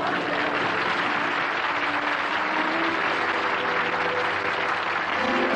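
Canned studio-audience reaction from a sitcom laugh track, a dense wash of laughter and applause following a punchline. Music with held notes comes in underneath about halfway through.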